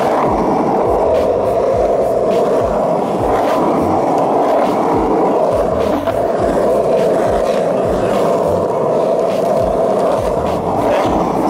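Skateboard wheels rolling over rough pavement: a steady, loud rumble broken by frequent short clicks.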